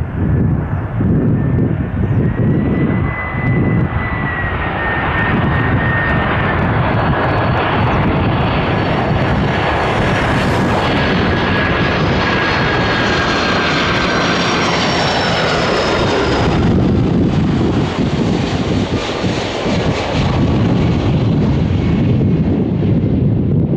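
Jet airliner passing by: its engines' rushing noise swells with a high fan whine whose pitch slowly falls as it goes past, and the high part of the sound drops away about two thirds of the way through as it moves off. Wind buffets the microphone throughout.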